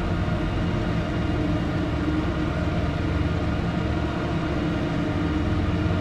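A steady, low rumbling drone from a film's opening-title soundtrack, with several sustained tones layered over a deep rumble.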